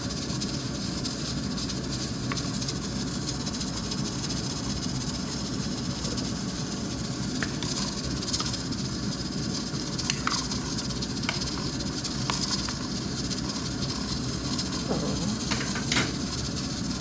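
A steady hissing rumble from the pot of pork-bone soup boiling on the gas stove. A few light clicks and knocks come through as the plastic ladle stirs against the stainless steel pot.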